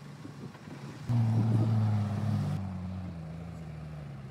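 Off-road vehicle engine running at a steady pitch. It comes in abruptly about a second in, loudest at first, then settles a little quieter after a couple of seconds.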